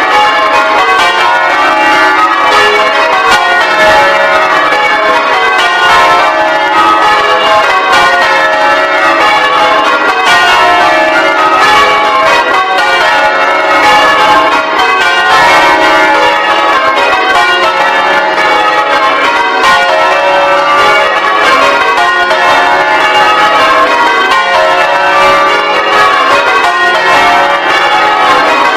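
A ring of ten church bells in full-circle change ringing, the bells striking one after another in a steady, continuous rhythm.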